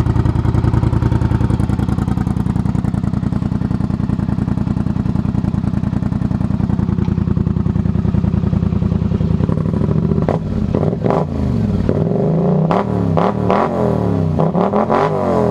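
Polaris Scrambler 850 ATV's twin-cylinder engine running loud through a freshly fitted RJWC slip-on exhaust: a steady idle, then from about ten seconds in, several quick throttle blips that rise and fall in pitch, with a few sharp clicks among them.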